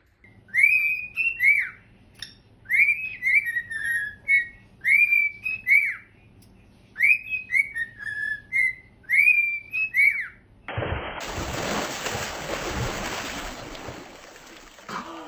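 A cockatiel whistling the same short tune over and over, in five phrases about two seconds apart, each made of quick rising-and-falling notes. About eleven seconds in, the whistling gives way to a steady rushing noise.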